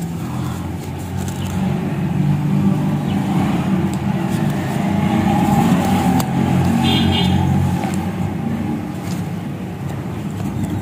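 A steady low engine hum that grows louder over a few seconds and eases off near the end.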